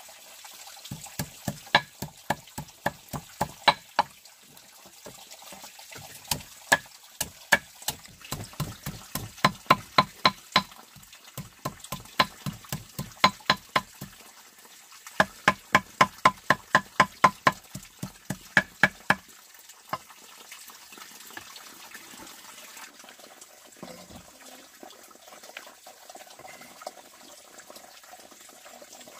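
Rapid, regular knocks with a short ring, about three to four a second, in several runs with brief pauses between them, stopping about two-thirds of the way through.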